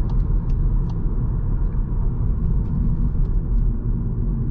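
Steady low rumble of a 2020 Seat Leon FR cruising, heard inside the cabin: tyre and road noise with the engine running underneath.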